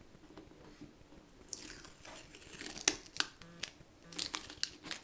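Blue painter's tape being peeled off by hand, tearing and crackling. It starts about a second and a half in, with sharp crackles through the second half.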